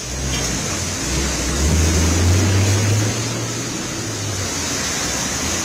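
Road traffic in heavy rain: a vehicle's engine swells and then fades as it drives past through standing water, over a steady hiss of rain and water spray.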